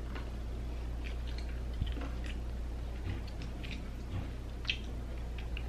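A person chewing a spoonful of yogurt with M&M candies mixed in: soft, irregular mouth clicks and small crunches, over a steady low hum.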